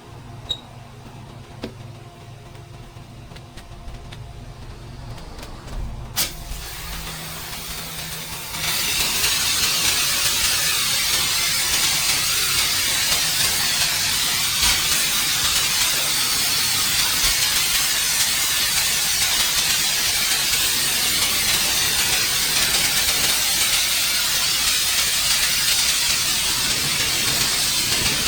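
Pressure washer spraying: after a faint low hum and a single click, a loud, steady hissing spray starts about eight and a half seconds in and keeps on.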